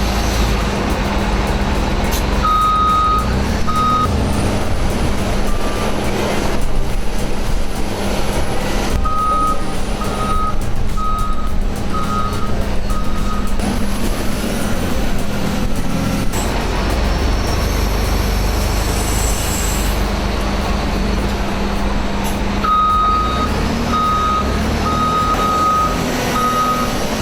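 Heavy machine's diesel engine running steadily, with its reversing alarm beeping about once a second in three separate stretches.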